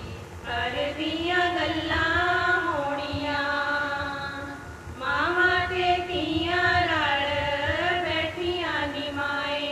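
Women singing a Punjabi suhag folk song into a microphone, with long drawn-out notes in phrases and no instruments heard. The phrase breaks off about four and a half seconds in, then the singing picks up again.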